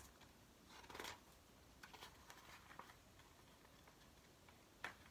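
Near silence broken by faint paper rustles and soft taps as a thin picture book is handled and its pages are flipped, with one sharper tap near the end.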